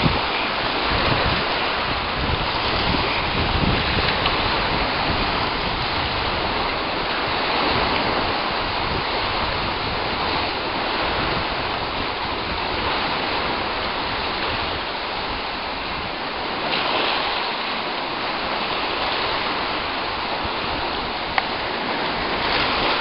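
Steady rushing wash of choppy seawater on the incoming Bay of Fundy tide, with wind gusting on the microphone at times. A single sharp click near the end.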